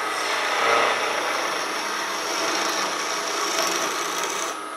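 Small wood lathe running with a tool cutting a small spinning wooden blank. A steady motor hum sits under a scraping hiss, and a high whine joins it in the second half.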